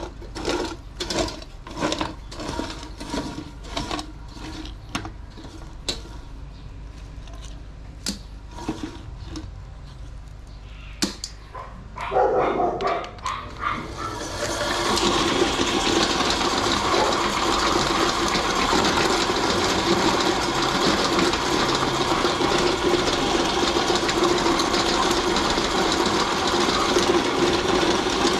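Motor-driven meat grinder grinding raw chicken: about halfway in it becomes loud and steady and keeps running. Before that there is a quieter stretch of regular pulses, about two a second.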